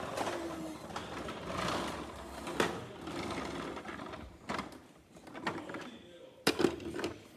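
Plastic toy fire trucks being handled: rustling and clattering as a toy ladder is swung and raised, with a few sharp clicks and knocks.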